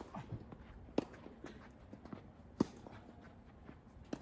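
Tennis rally: the ball is struck by rackets and bounces on the court, giving four sharp pops a second or more apart, with lighter knocks and footsteps between them.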